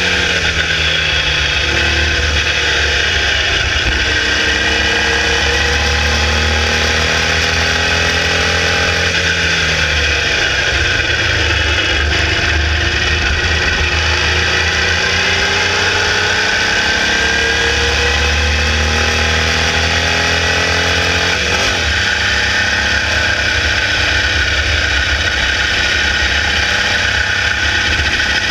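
Formula Vee racing car's 1200cc air-cooled VW flat-four at full racing speed, its pitch climbing steadily through the revs, falling about ten seconds in and dropping sharply again a little after twenty seconds, with heavy wind rumble on the onboard microphone.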